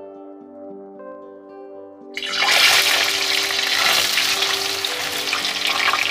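Paneer cubes tipped into hot oil in a kadhai, setting off a loud, steady sizzle of deep-frying that starts suddenly about two seconds in. Soft background music plays before it and continues faintly underneath.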